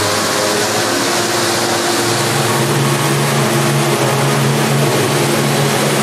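The Rain Vortex indoor waterfall: a great column of water falling from the roof into its pool, a loud, steady rush. Under it run a few low steady hums, which step up in pitch about two seconds in.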